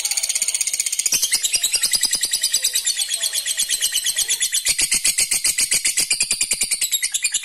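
Lovebird giving its long 'ngekek' call: a rapid, unbroken chatter of high notes, many per second, held for the whole stretch.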